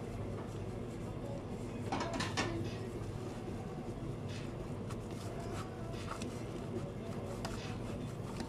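Steady kitchen background hum with a few short knocks and clatters, the loudest pair about two seconds in, and faint rustles and ticks as a sushi roll is shaped and pressed by hand on a cutting board.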